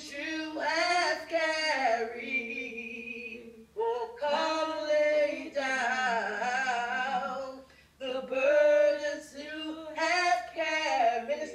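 A woman singing solo without accompaniment, in slow phrases with long held, gliding notes and short breaths between them; a faint steady low hum lies beneath.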